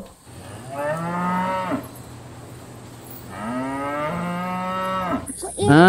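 Domestic cattle mooing: two long moos, one about a second in and a longer one past the middle.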